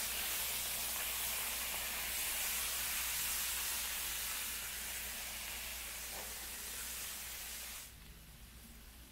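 Smash-burger patty and onions sizzling loudly on a hot Blackstone steel griddle as they are pressed flat under a cast iron burger press; the hiss drops away suddenly near the end to a much fainter sizzle.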